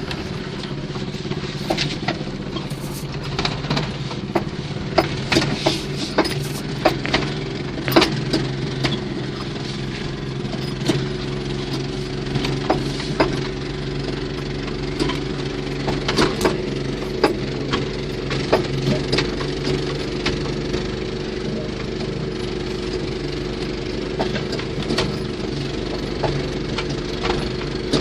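A 6.5 hp single-cylinder walk-behind tractor engine fitted in a VAZ 2109, running steadily. Irregular sharp knocks and rattles come in throughout, thickest a few seconds in and again about halfway.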